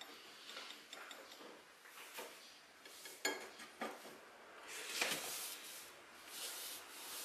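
Faint clinks and taps of an ink brush against small ceramic ink dishes, then a soft rustle of hands on paper about five seconds in.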